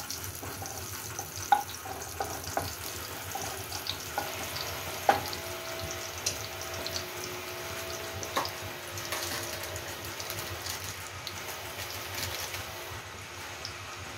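Cumin seeds and a dried red chilli crackling in hot ghee in a kadhai during tempering (tadka): a steady sizzle with scattered small pops. There are a couple of sharp knocks, about a second and a half in and again about five seconds in.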